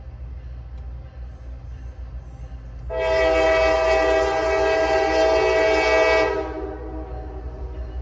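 Horn of an approaching CSX diesel locomotive hauling a loaded coal train: one long blast of about three seconds, starting about three seconds in, over a steady low rumble.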